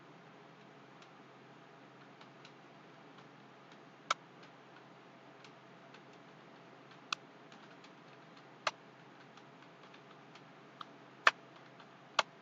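Computer keyboard keys clicking one at a time at an irregular, slow pace. Faint taps run throughout, with about five louder single keystrokes in the second half.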